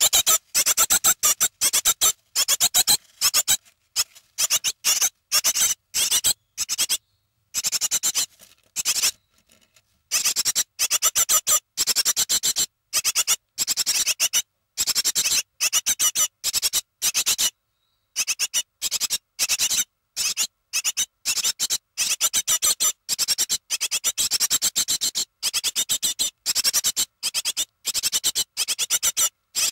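Nestling birds about 21 days after hatching, close to fledging age, calling in rapid, high-pitched chirps. The chirps come in bursts with a few short pauses.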